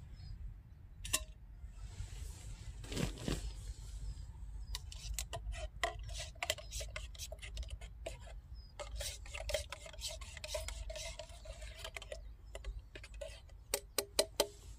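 A spoon stirring coffee in a camping mug: a long run of quick clinks and scrapes against the mug's side starting about five seconds in, then a few louder taps near the end.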